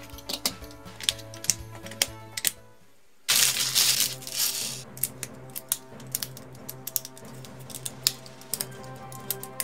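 Background music over a quick run of sharp clicks and clatter as plastic LEGO bricks are snapped together and handled. About three seconds in there is a brief, loud rustle of a plastic parts bag.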